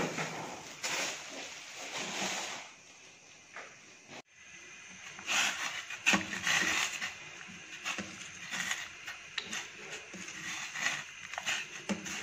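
Metal ladle stirring in a small steel saucepan of sweet potato cubes cooking in water on a gas burner, with many short clinks and scrapes of metal on metal. Before that, kitchen handling noise of bowls and utensils, broken by a brief drop-out about four seconds in.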